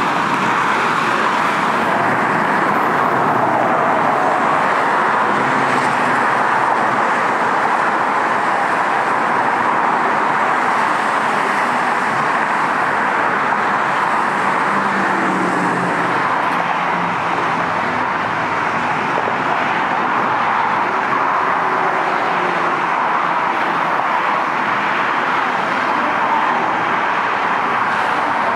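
Steady, even roar of freeway traffic.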